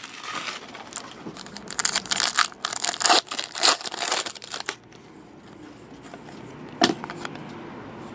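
Foil trading card pack wrappers being torn open and crinkled: a run of papery rustles and tears for the first five seconds, then one more sharp rustle near the end.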